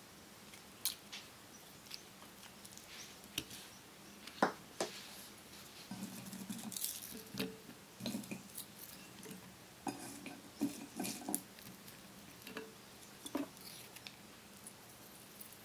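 Pieces of raw fish, then sliced onion and green onion, being laid and dropped by hand into a stainless-steel pot: scattered soft pats and light clicks, busiest in the middle.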